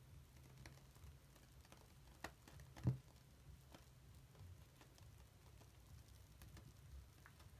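Faint crackling and ticking of bath-slime lather being squeezed by hand, its bubbles popping, over a low hum. A single soft knock comes about three seconds in.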